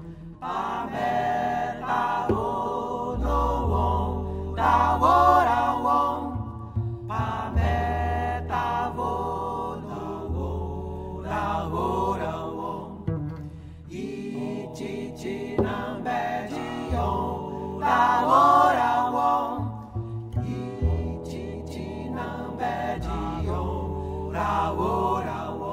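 Vocal music adapted from a Jaboti Indigenous chant: a short melodic line sung over and over, adorned by other voices, over held low bass notes.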